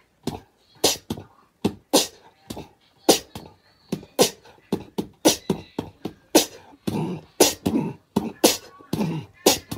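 An irregular string of sharp clicks, about two or three a second.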